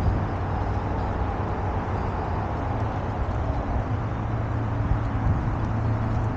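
Steady riding noise of an electric unicycle rolling over a dirt trail: a low rumble and broad hiss from wind buffeting the camera microphone and the tyre on the ground.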